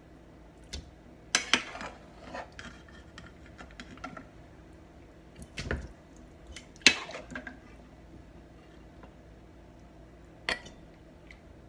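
Metal ladle clinking and scraping against the rims of a pressure cooker and a steel pot as boiled beef bones are ladled from one to the other. There are several sharp clinks, the loudest about seven seconds in.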